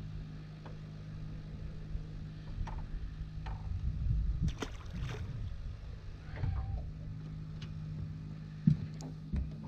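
A released crappie splashing into the lake about four and a half seconds in, among scattered clicks and knocks of tackle being handled in a small fishing boat, over a steady low hum. A sharp knock near the end is the loudest sound.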